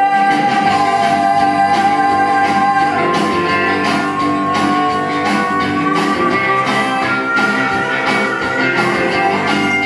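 Upbeat country song with guitar, singing and a steady beat.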